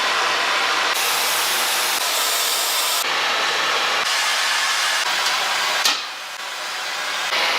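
Loud, steady hissing noise from industrial machinery, changing abruptly about once a second. A sharp click comes just before the sixth second, then a quieter hiss that builds back up.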